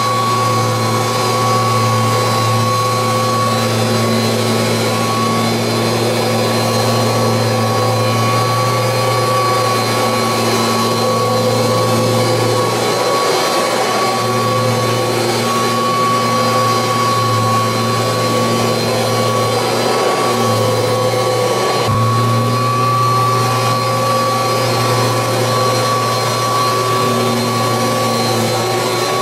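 A 1986 Kirby Heritage 2 upright vacuum cleaner running steadily with a loud motor-and-fan whine. Its low hum dips briefly a few times.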